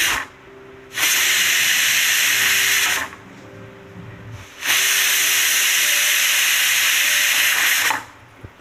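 Stovetop pressure cooker whistling: the weight on the vent lifts and steam hisses out loudly in bursts, one ending right at the start, then two longer ones of about two and three seconds with short quiet gaps between. This is the sign that the cooker has reached full pressure.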